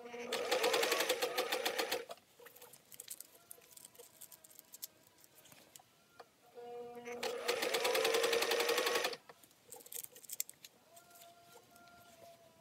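Singer 500A sewing machine stitching in two bursts of about two seconds each, the needle running in fast, even strokes. A steady motor hum starts just before each burst, with small clicks in the quiet gap between them and the hum back near the end.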